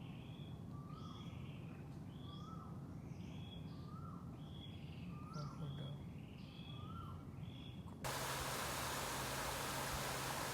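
A bird calling over and over, the same short call repeated about once a second, over a low steady hum. About eight seconds in this cuts off suddenly to a steady hiss.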